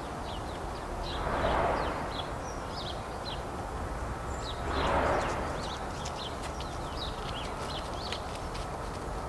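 Small birds chirping in the background, with two brief soft swells of noise, one about a second and a half in and one about five seconds in.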